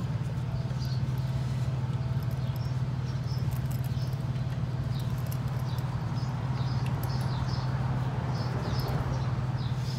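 Faint, scattered squeaks and rubbing as snug fabric covers are worked onto plastic fluid-reservoir caps, over a steady low hum.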